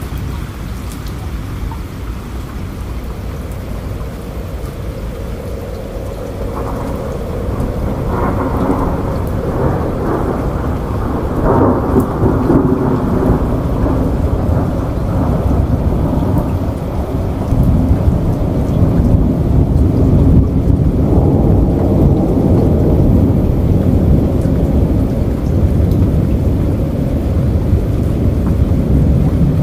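Heavy rain and rushing floodwater: a steady, loud rushing noise with a deep rumble. It grows louder about six seconds in and again near eighteen seconds.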